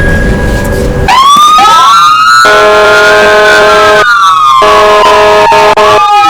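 Several emergency-vehicle sirens wailing together, very loud, starting about a second in, their pitch sweeping up and falling away slowly over steady held tones.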